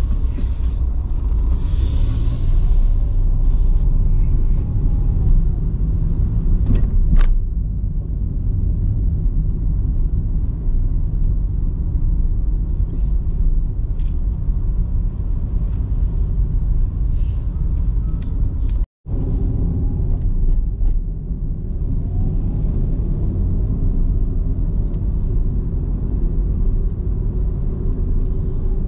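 A car driving, heard from inside the cabin as a steady low rumble of road and engine noise. There is one sharp click about seven seconds in, and the sound drops out for an instant about two-thirds of the way through.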